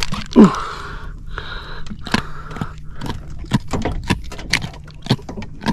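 A freshly landed jack being handled in a small boat: a string of sharp clicks and knocks, with a short sound sliding down in pitch about half a second in, the loudest moment.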